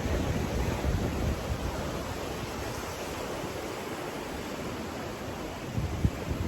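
Ocean surf and wind: a steady rushing with uneven low rumbles and a few gusts near the end.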